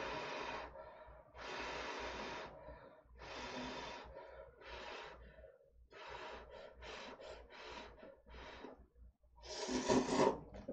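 Instant Sari Gomtang cup noodles slurped with chopsticks: three long slurps in the first four seconds, then a quick run of short slurps, with the loudest slurp near the end.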